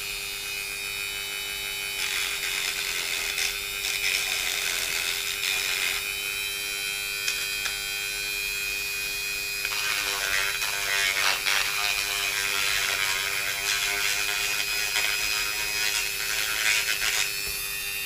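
Dremel rotary tool running with a small sanding drum, a steady high whine, grinding the edge of a thin Lexan canopy panel to trim back the side-window opening. The rasp of the sanding grows heavier about halfway through.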